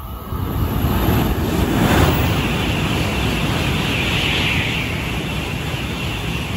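N700-series Shinkansen bullet train passing the platform at speed: a loud rushing of air and wheels that swells within the first second, holds steady, and begins to fade near the end.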